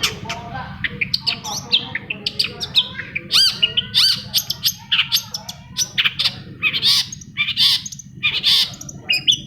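Long-tailed shrike (cendet) singing a rapid, varied song: quick chirps and whistled notes that glide up and down, mixed with harsh squawking notes.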